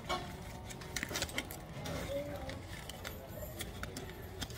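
Handling noise: a few sharp clicks and light metallic rattles, a cluster about a second in, over faint background voices.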